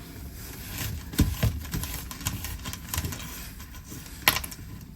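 Motorcycle wiring loom and small parts being handled: irregular small clicks and taps, with one sharper click about four seconds in.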